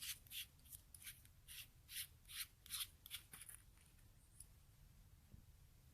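Faint, rhythmic dry scraping from a flashlight's aluminium tail cap being unscrewed, the threads rasping in short strokes a few times a second. The strokes stop about three and a half seconds in.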